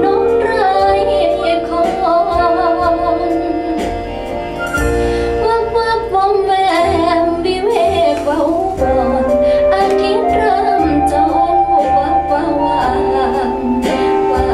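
A Thai ballad with a female singer and instrumental backing, played back from a recording over Gauder Akustik Berlina RC-11 floor-standing loudspeakers. The voice carries a continuous, gliding melody over sustained accompaniment and bass.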